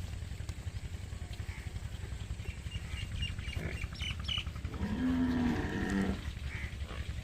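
A large farm animal's call: one drawn-out, pitched call lasting just over a second, about five seconds in, over a steady low rumble.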